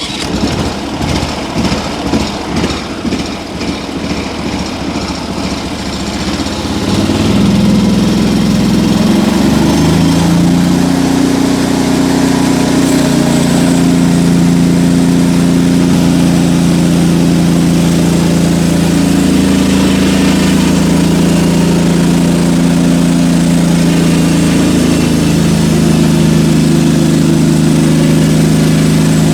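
Portable band sawmill's small gasoline engine running, uneven and pulsing at low speed for the first six seconds or so. About seven seconds in it speeds up and holds a steady high drone, with small dips in pitch under the load of the band blade cutting through a log.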